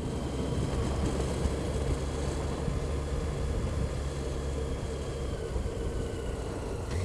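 Motorcycle riding at a steady cruise: a constant low engine drone under a steady rush of wind and road noise.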